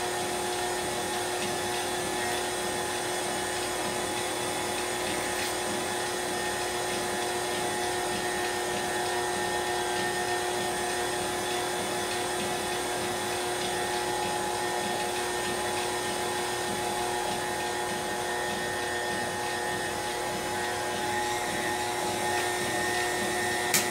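KitchenAid stand mixer running steadily with an even motor whine, beating a double batch of pound cake batter.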